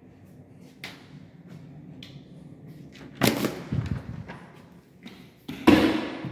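An interior door worked by its lever handle: a clattering of latch and door about three seconds in as it is opened, then a louder bang near the end.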